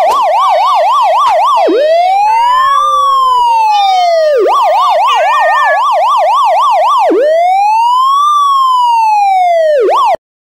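Police siren sound effect alternating between a fast yelp, about four pitch sweeps a second, and a slow wail that rises and falls over about three seconds; the pattern goes round twice and cuts off suddenly near the end.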